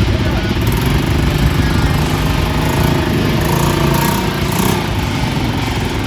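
Quad bike engine running steadily at a constant level.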